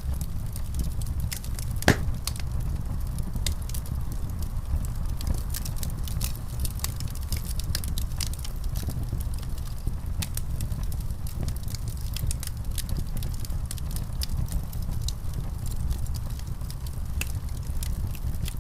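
Wood fire crackling in a fireplace: a steady low rumble of flames with many small, irregular crackles and pops, one sharper pop about two seconds in.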